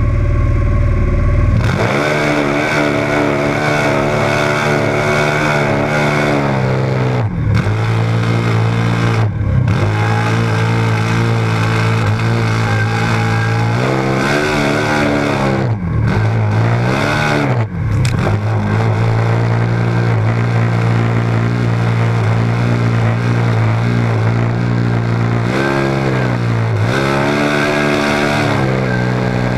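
Turbocharged Can-Am Maverick X3 side-by-side engine at high revs under load in a mud race, heard from the cockpit. The engine note holds steady for long stretches and dips and climbs back a handful of times, most often around the middle.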